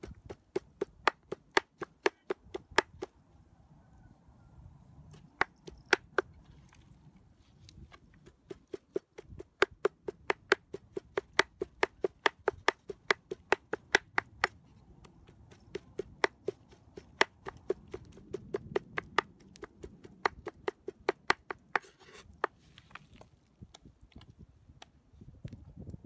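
Heavy meat cleaver chopping chicken fillet on a wooden cutting board: quick runs of sharp knocks, about four a second, broken by short pauses.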